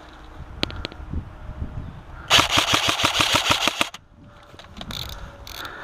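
Airsoft gun firing a rapid full-auto burst of about a second and a half, roughly ten shots a second, after a few single sharp clicks.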